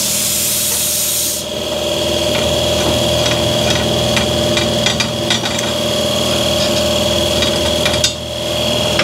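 A shop machine's electric motor hums steadily. A hiss of air cuts off about a second and a half in, and the cut metal piece clinks lightly several times as it is handled.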